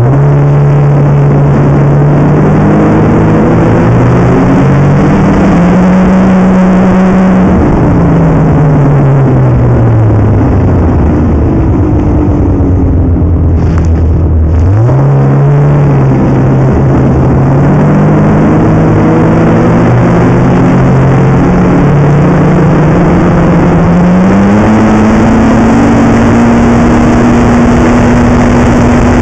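Snowmobile engine running loud, revving up, then dropping to a low steady idle for several seconds about halfway through, then revving up again and holding a steady, higher pitch near the end.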